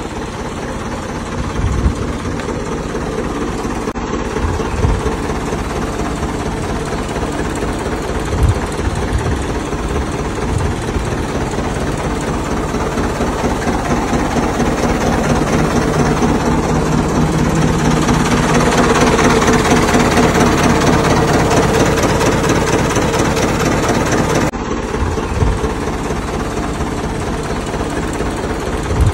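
Ford 6600 tractor's diesel engine idling steadily, with a knocking diesel beat. It grows louder through the middle stretch, then drops back suddenly about 24 seconds in.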